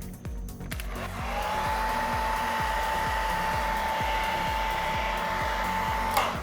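Handheld hair dryer switched on about a second in, its motor whine rising quickly to a steady high pitch over a steady rush of air, then switched off with a click near the end.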